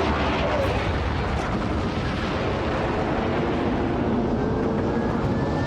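Cartoon spaceship engine sound effect: a steady rumbling rush of thrust with a faint whine rising in pitch in the second half, as the ship flies off.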